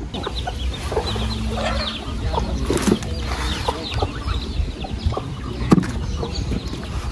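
Chickens clucking, with many quick high chirps throughout and a few sharp knocks, the loudest about two-thirds of the way through.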